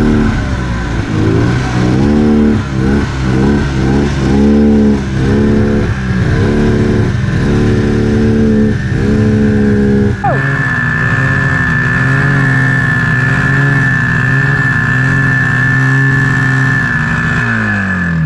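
Snowmobile engine revving up and down in quick repeated surges. About ten seconds in it settles to a steady speed with a high steady whine over it, then winds down near the end.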